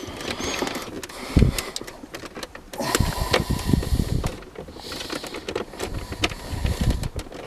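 Plastic clicks, creaks and scrapes from a Holden VX Commodore's power window switch housing being pried and unclipped from its door trim, mixed with handling knocks and a heavy thump about a second and a half in.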